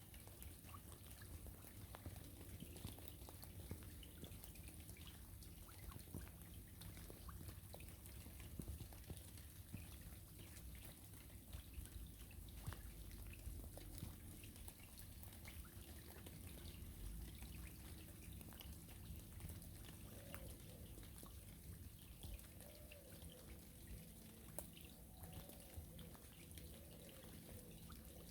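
Rain falling on a river: many small drops ticking onto the water over a soft steady hiss, faint overall.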